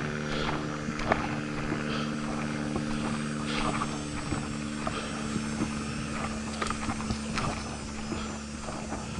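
A steady engine drone holding several low tones, with irregular footsteps on the trail.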